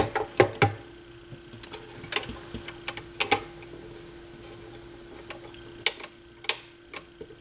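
Scattered light clicks and taps of small metal and plastic parts as hands handle and work the exposed tonearm and cueing linkage on the underside of a Technics SL-1301 turntable, over a faint steady hum.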